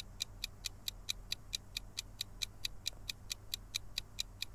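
Quiz countdown-timer sound effect: short, sharp, even ticks at about four and a half a second, marking the time left to answer.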